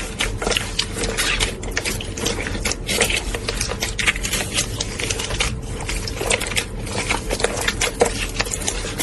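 Slime being squeezed and stretched by hand: a steady stream of wet, irregular crackles, clicks and pops. It cuts off suddenly at the end.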